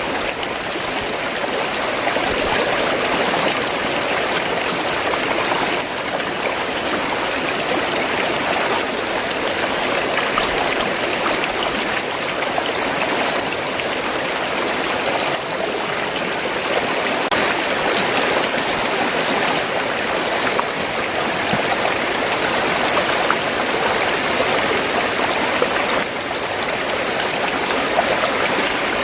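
Fast-flowing stream water gurgling and rushing steadily.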